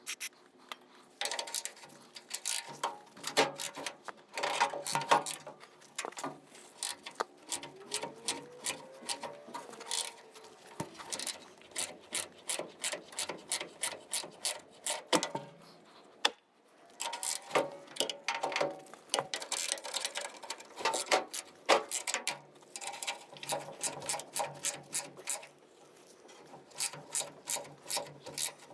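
Hand ratchet wrench clicking in quick runs of strokes with short pauses between them, as nuts are backed off bolts.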